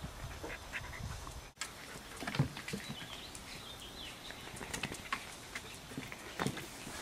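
Poodle puppies scuffling on a plastic exercise step: scattered light taps of paws and claws, with a louder thump about two and a half seconds in and another near the end, and a few faint high squeaks in the middle.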